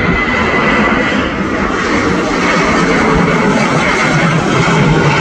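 Twin jet engines of a Boeing 737 at takeoff thrust as the airliner rotates and lifts off: a loud, steady roar. A high fan whine fades after about two seconds, and the low rumble grows stronger toward the end.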